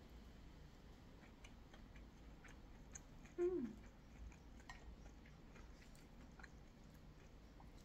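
Faint chewing of a mouthful of crunchy salad with fried onion flakes, with scattered soft crunching clicks. About three and a half seconds in, a short hum falling in pitch.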